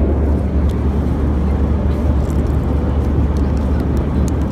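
Airbus A321 cabin noise in flight: a steady low drone of engines and rushing air.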